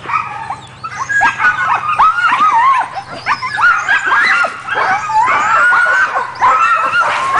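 Sled dogs in harness yelping, whining and barking together in an excited chorus, many high rising-and-falling calls overlapping, thickening about a second in: the eager noise of a stopped team impatient to run.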